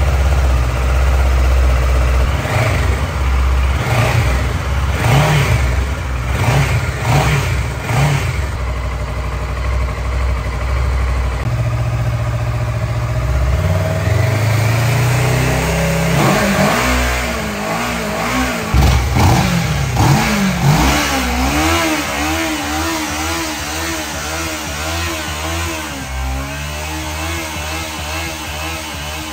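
Motorcycle engine revved in a series of short throttle blips, then settling to a lower, steadier run whose pitch wavers up and down.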